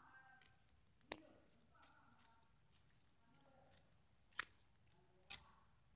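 Near silence with faint voices in the background, broken by three sharp clicks: about a second in, past four seconds, and again about a second later.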